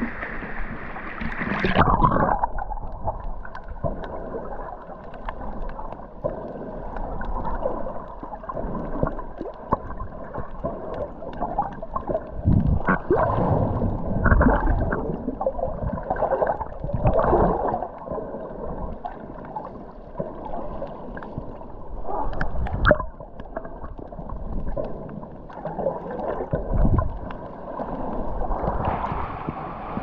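Underwater sound of a snorkeler swimming: muffled rushing and gurgling of water with irregular louder surges, the high end cut off. The sound goes under about two seconds in and comes back up near the end, brightening into surface splashing.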